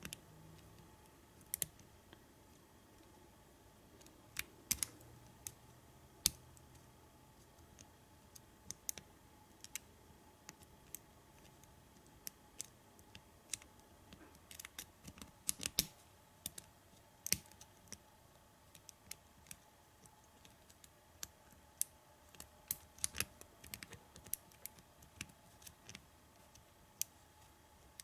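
Faint, irregular metallic clicks and ticks of a lock pick and tension wrench working the pins inside a small pin-tumbler gun lock, a few clicks every second or two with quiet gaps between.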